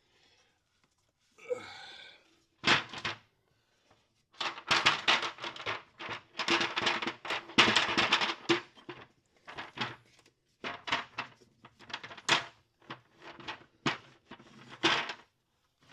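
Repeated knocks, clunks and scraping of the CVT clutch housing cover being handled and worked back into place, in two long stretches of clatter with a few single sharp knocks before them.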